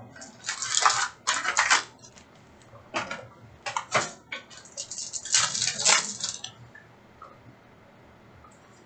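Crinkling and rustling of trading-card pack wrappers and cards being handled, in several short bursts that stop about six and a half seconds in.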